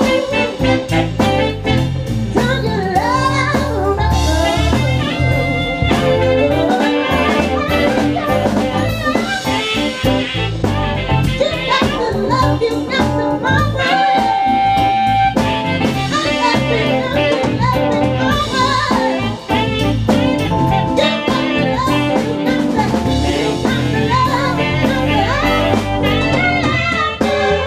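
Live band playing an R&B groove, with electric bass through a 1960s Acoustic 360 folded-horn bass amp filling out a strong low end under drums, percussion and keyboards.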